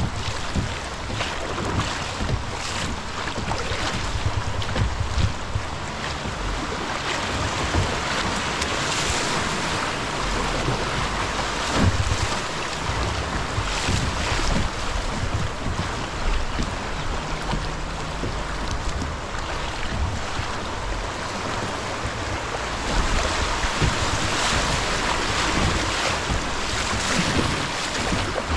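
Rushing river water in a stretch of rapids around a kayak, with wind on the microphone and scattered knocks and thumps.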